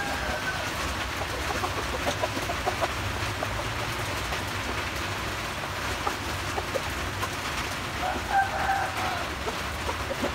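Chicken calls over a steady background hiss: one call trails off just at the start, and another, about a second long, comes about eight seconds in. Light scattered clicks run under it.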